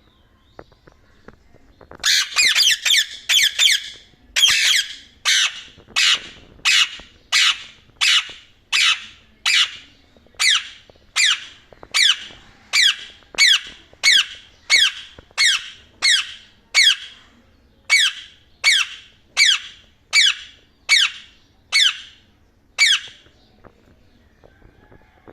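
Indian ringneck parakeet giving loud, harsh squawking calls: a quick flurry of calls first, then single calls repeated about every three quarters of a second for some twenty seconds.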